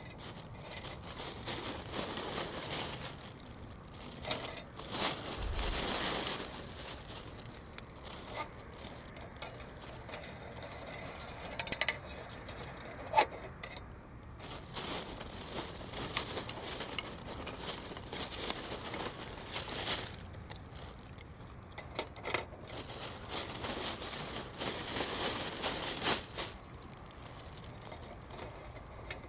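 Intermittent rustling and crinkling in short bursts, with a couple of sharp clicks around the middle.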